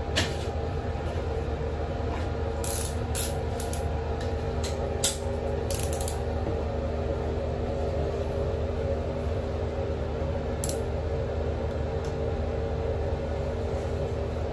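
A blade cutting wallpaper in an inside corner: a handful of short, sharp clicks and scrapes, mostly in the first six seconds and once more later. Behind it runs a steady mechanical hum.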